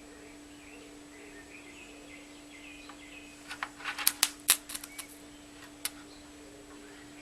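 A battery drop tester's probes clicking against the terminals of a 12 V lead-acid battery as the load is applied: a quick cluster of sharp metallic clicks about halfway through, then one more click a second later. Under this a steady low hum and faint birdsong carry on.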